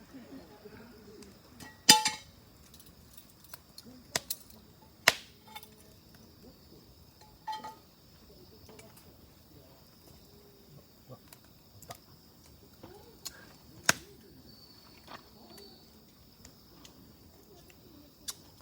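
Wood fire crackling, with a few loud sharp pops, the loudest a little under 2 s in and at about 5 and 14 s, and smaller ticks between them. A steady high insect-like drone runs underneath.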